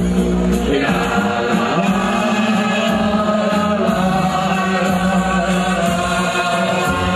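A crowd of football supporters singing a chant together in unison, many voices holding long notes.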